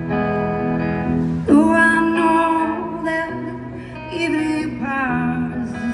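Live amplified concert music: a woman singing into a microphone in two phrases, starting about a second and a half in, over sustained guitar chords.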